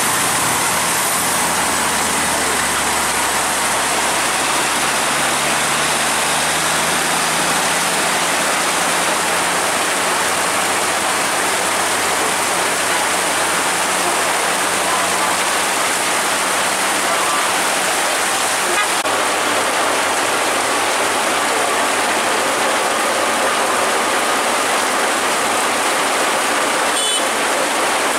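Heavy rain pouring down in a steady, dense hiss. In the first few seconds a Fuso truck's diesel engine rumbles low under it and fades away.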